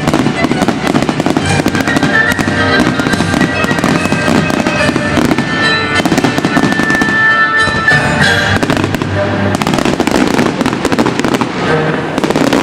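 Fireworks bursting and crackling in quick succession over music.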